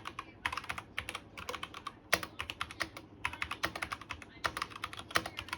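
Fast typing on a Cooler Master CK530 mechanical keyboard with tactile brown switches: a rapid run of key clacks in quick bursts, with a brief pause about halfway through.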